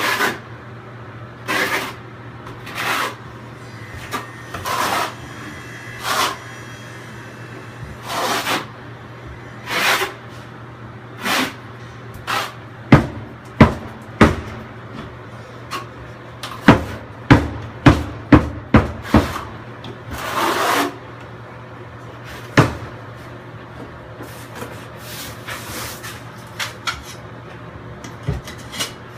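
Hand work on wall tile: a run of short scraping strokes about every second and a half, then a quick burst of sharp clicks and knocks, with one more knock a few seconds later.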